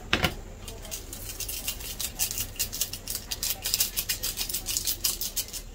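Plastic and foil instant-noodle seasoning sachets crinkling as they are handled, squeezed and shaken out over a ceramic bowl. There is a sharp tap at the start, then a busy run of fast crinkles.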